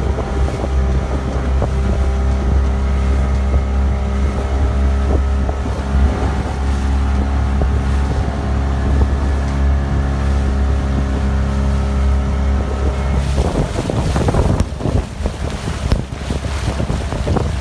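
Small boat's engine running at a steady pitch under way. About thirteen seconds in, the engine sound gives way to wind buffeting the microphone and water splashing against the hull as the boat moves through the waves.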